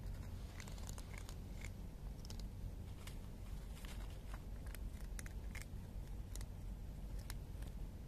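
Two cats crunching dry kibble: sharp, irregular crunches about two a second, over a steady low rumble.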